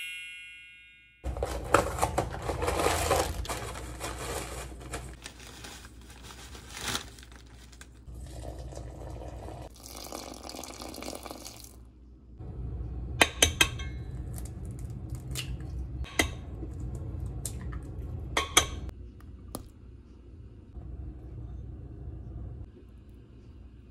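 Boxed cake mix being made up in a stainless steel mixing bowl: handling and pouring noise, then water and oil poured into the mix, with several sharp clinks against the bowl in the second half.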